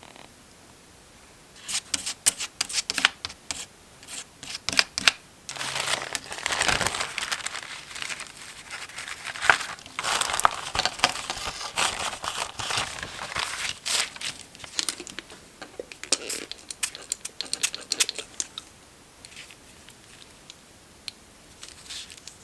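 Paper being crinkled and torn by hand, close up: crisp crackles start about two seconds in, run into a longer continuous rustle through the middle, and thin out to a few scattered crackles near the end.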